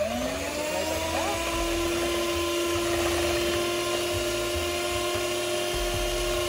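Electric hand mixer starting up, its motor whine rising in pitch over the first second and then running steadily as the beaters whisk eggs and sugar in a metal bowl.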